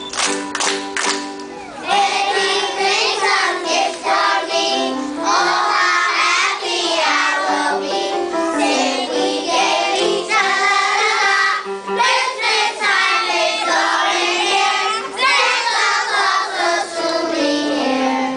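A young children's choir singing a song together over backing music. In the first second or so the children clap along in rhythm.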